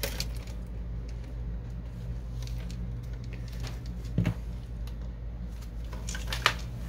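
A few light clicks and knocks of the plastic and metal parts of an inkjet printer's print-head carriage as it is handled: one at the start, one about four seconds in and a short cluster near the end, over a steady low hum.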